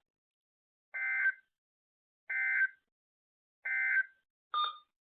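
Three short buzzy bursts of the EAS/SAME end-of-message data signal from NOAA weather radio receivers, about one and a half seconds apart, marking the close of the weekly test. A shorter beep follows near the end.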